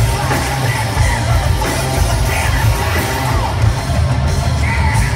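Live rock band playing loudly, with electric guitar, drums and heavy bass, and a yelled lead vocal over the top.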